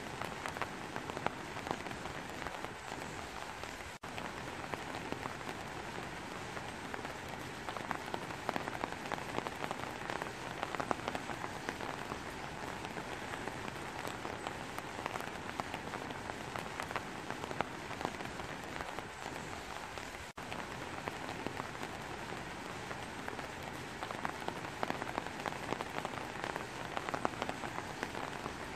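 Steady rain falling, an even hiss thick with the ticks of individual drops. Twice it drops out for a split second.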